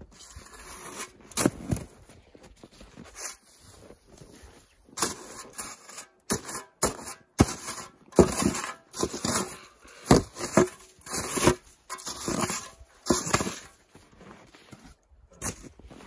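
Metal snow shovel scraping and digging into packed snow in a run of short strokes, sparse at first and then about one a second.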